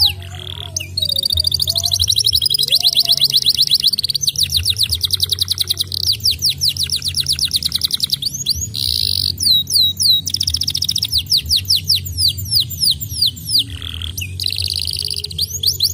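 Domestic canary singing a long song of high trills: fast rolls of one note repeated many times a second, alternating with slower runs of falling notes, with short breaks between phrases.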